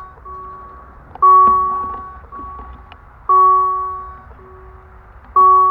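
Railroad level-crossing warning signal ringing: a loud ding about every two seconds, each one slowly fading, with a quieter ding in between, warning that a train is approaching.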